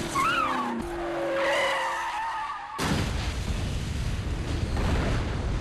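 Pontiac Trans Am's tyres squealing in a skid, the squeal wavering up and down. About three seconds in, a sudden loud explosion breaks in, and its low, dense noise carries on steadily.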